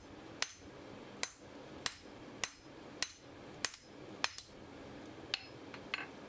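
Hand hammer blows on a red-hot steel hardie blank lying on an anvil, about ten in an even rhythm, each a sharp strike with a short metallic ring. The smith is drawing out the hardie's cutting edge to a taper.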